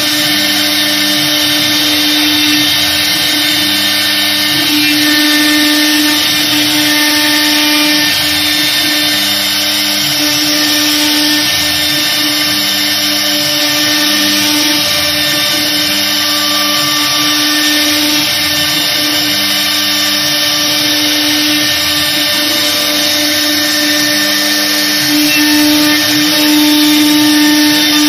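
1325 CNC router carving a relief pattern into an MDF door panel: the spindle runs with a steady whine over the hiss of the bit cutting. Lower motor tones shift every second or so as the head moves.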